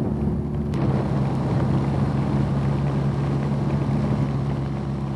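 BMW R nineT's air/oil-cooled boxer twin cruising at a steady 50 mph, its engine note holding an even pitch under rushing wind noise on the microphone.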